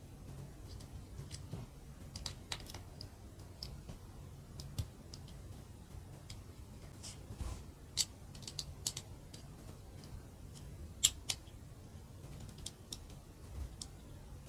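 Mini plastic building bricks being handled and pressed together: irregular small clicks and snaps, the loudest about eleven seconds in. A faint low hum runs underneath.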